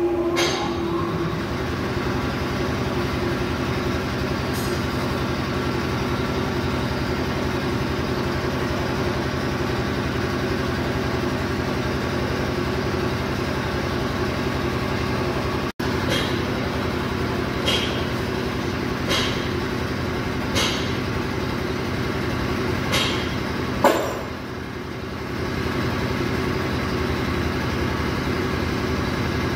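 A steady machine hum from a running motor or engine, with a constant pitch. Sharp metallic clicks and knocks come now and then over it, about eight times.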